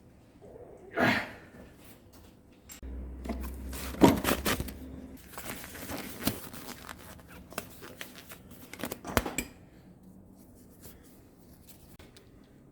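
Workshop handling noise: a run of sharp clicks, knocks and clatter from tools and parts being handled, bunched between about three and nine and a half seconds in, with a brief low hum about three seconds in.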